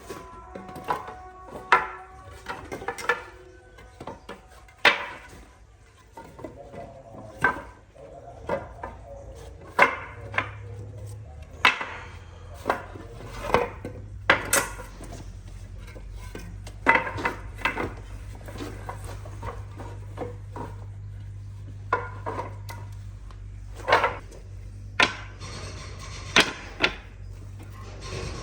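Irregular knocks and clatters of wood and tools being handled at a workbench, over a low steady hum that sets in about ten seconds in.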